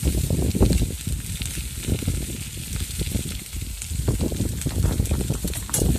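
Sausages and onions sizzling on a steel barbecue hotplate, with a low, gusty rumble of wind on the microphone. A sharp click near the end.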